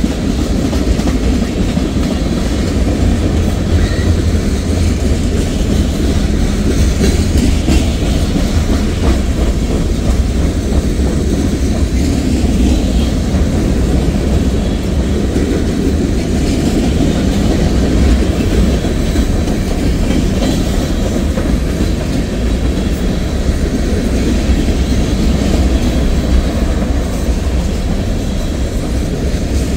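Cars of a mixed manifest freight train rolling past, their steel wheels running on the rails in a steady, heavy rumble that stays even throughout.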